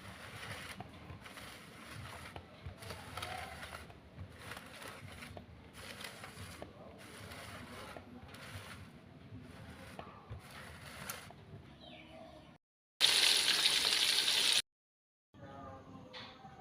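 Soft, rhythmic sloshing of water for about twelve seconds, as when something is washed by hand in a bowl. After a cut comes a short, loud burst of food sizzling in hot oil.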